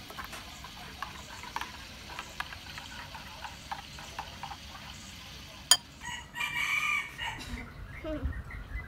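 Metal spoon clinking lightly against a ceramic bowl as sauce is stirred, with one sharp clink a little past halfway. Then a rooster crows once for about a second.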